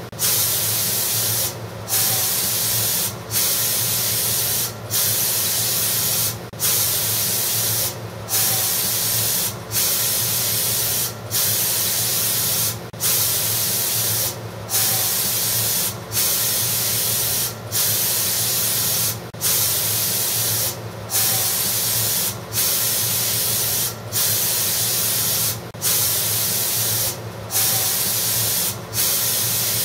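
Air-powered spray gun with a siphon cup spraying glaze onto a pot: a steady loud hiss of air and atomised glaze, broken by a short pause about every second and a half.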